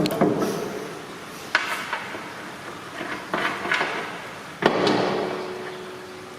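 Steel parts and spanners being handled on the mower's axle and hub: a series of sharp metal clanks and knocks, with a cluster about halfway and a louder clank near the end that rings on briefly.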